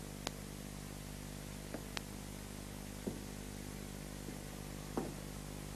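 Quiet stretch of steady low background hum with a few faint, short clicks or knocks scattered through it.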